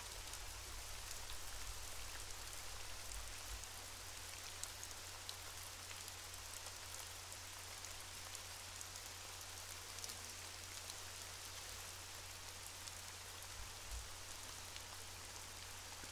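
Faint underwater ambient noise: a steady crackling hiss sprinkled with tiny clicks, over a low hum.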